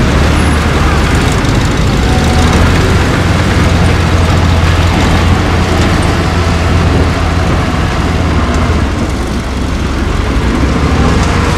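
Diesel engines of heavy earthmoving machinery, bulldozers and dump trucks, running steadily with a deep, continuous drone.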